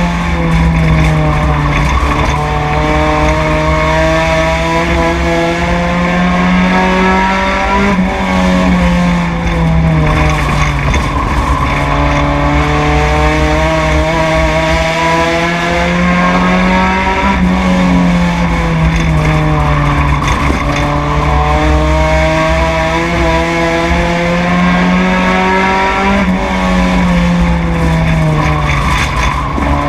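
Four-cylinder oval race car engine heard from the cockpit, running hard. Its pitch climbs steadily and then dips sharply every four to five seconds as the throttle is lifted for each turn and picked up again.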